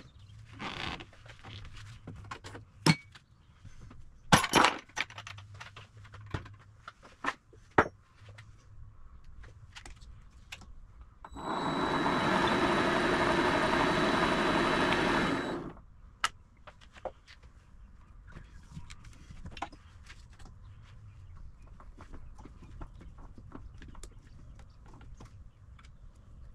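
Sharp clicks and metal knocks from handling the side cover and parts of a mini lathe as it is opened up. Then a loud, steady rushing noise with a faint high whistle lasts about four seconds and stops.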